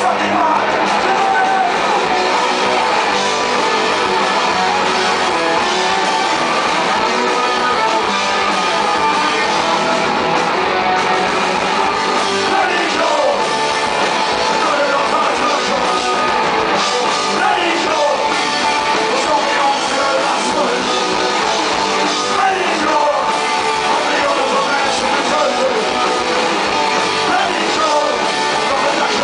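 Punk rock band playing live: electric guitars, bass and drums with a male singer shouting the vocals into a microphone, heard loud from within the crowd.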